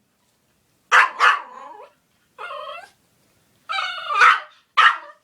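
Dog begging for popcorn, barking and whining: a sharp bark about a second in, two drawn-out whining calls, then another short bark near the end.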